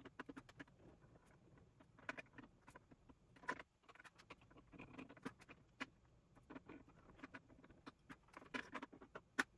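Faint, scattered clicks and rustling as Cat6 wires are seated and punched down into a keystone jack with a hand punch-down tool, with a sharper click near the end.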